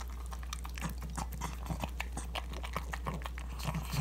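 A pug eating ground beef: fast wet smacking and chewing clicks, broken about twice a second by short, low, pig-like grunts.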